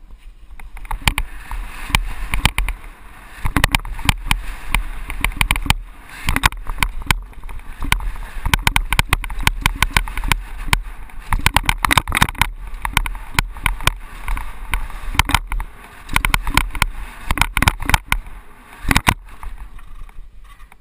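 Mountain bike descending a rough dirt course, heard from a camera on the rider: wind rushing over the microphone with a constant deep rumble, and many sharp, irregular rattles and knocks from the bike and tyres hitting bumps.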